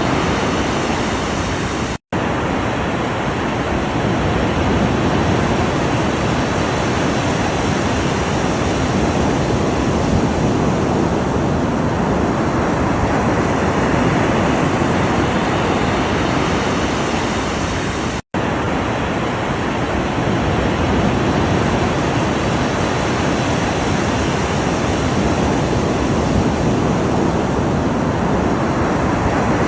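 Ocean surf in a steady, dense wash of breaking waves, broken twice by an instant of silence: once about two seconds in and again some sixteen seconds later.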